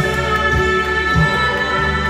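Karaoke backing track playing: long held chords over a soft low beat that comes a little under twice a second.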